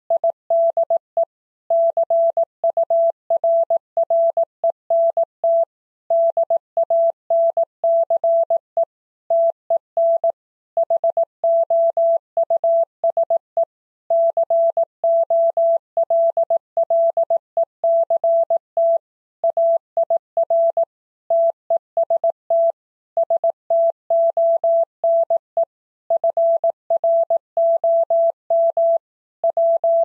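Morse code sent as a single steady beep at 18 words per minute: dots and dashes keyed on and off, with longer gaps between the words.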